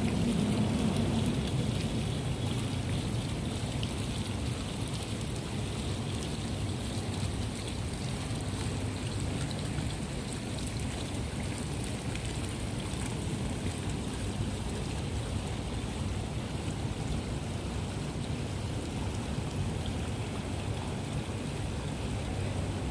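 Steady rushing water, an even hiss of rain or running water without break. A low rumble under it fades in the first couple of seconds.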